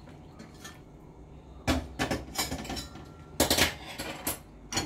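Steel kitchenware clanking: a saucepan and ladle knocking against a metal kadai and the stovetop in a few sharp clanks, starting about two seconds in and loudest in the second half.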